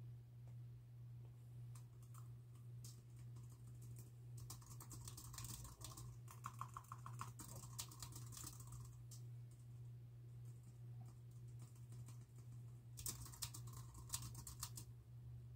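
Typing on a computer keyboard: quick runs of keystroke clicks, thinning out to a few scattered keys for several seconds in the middle before another fast run near the end. A steady low hum sits underneath.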